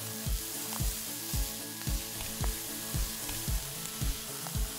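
Kinetic sand crumbling and trickling into a glass tumbler, a steady soft hiss that fades near the end, over background music with a steady beat.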